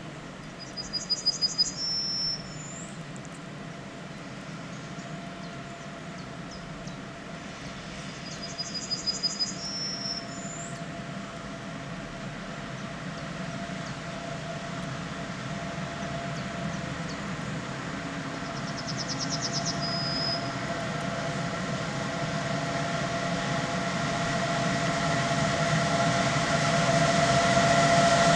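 Freight train hauled by a Pesa Gama electric locomotive approaching, its steady hum with a few held tones growing louder as it nears. A bird sings a short, fast, high trill three times: about a second in, about eight seconds in, and about nineteen seconds in.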